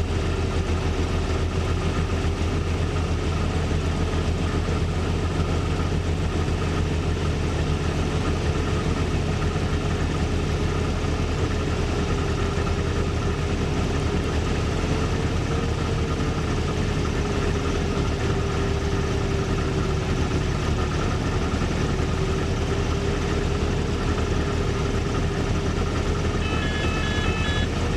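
Steady cockpit drone of a light aircraft's piston engine and propeller in flight, a low hum with a steady whine that wanders slightly in pitch.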